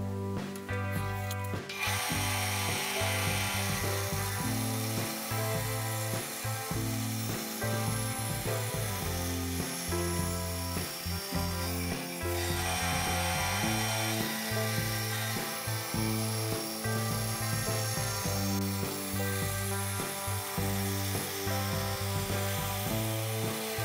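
Small narrow-bladed power saw cutting through thin plywood along a marked line, a steady cutting noise that begins about two seconds in, over background music.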